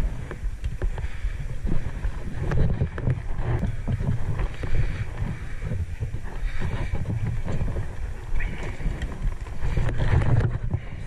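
Wind buffeting an action camera's microphone: an uneven, gusty low rumble that swells and eases. Light scuffs and knocks of divers walking over rock in scuba gear come through underneath.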